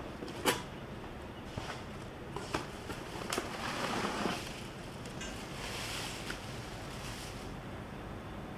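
Cardboard box and bubble-wrap packaging being handled: a sharp knock about half a second in, a few lighter taps, then crinkly rustling of the bubble wrap as a wrapped pot is lifted out of the box.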